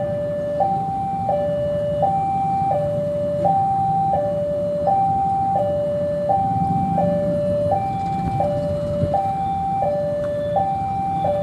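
Electronic two-tone warning signal sounding continuously, swapping between a higher and a lower tone about every two-thirds of a second. Under it is the low rumble of a CC 201 diesel-electric locomotive running at a station platform, ready to depart.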